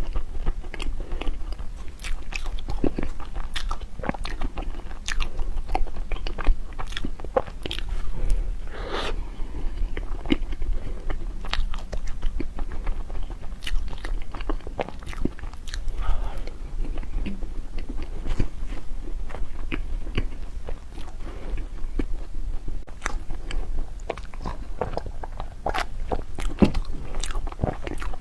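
Close-miked eating of snow skin mochi (xuemeiniang) desserts: bites and chewing with many sharp, irregular mouth clicks.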